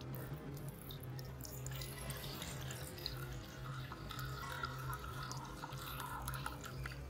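A thin stream of sake pouring from the metal tap of a porcelain sake dispenser and splashing into a small ceramic cup, growing fuller about two seconds in.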